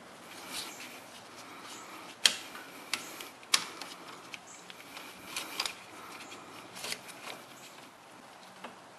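Scattered metallic clicks and light clacks of pliers working a spring hose clamp onto the rubber transmission cooler line hose at a radiator, with two sharper clicks about two and three and a half seconds in.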